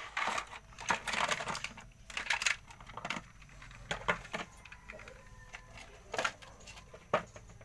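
Plastic toy trucks clicking and clattering as they are handled: a quick run of light knocks at first, then a few scattered clicks.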